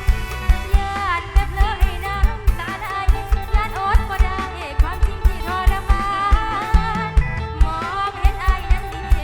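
Live northeastern Thai band music: a steady kick drum beat a little over twice a second under a gliding, ornamented melody line.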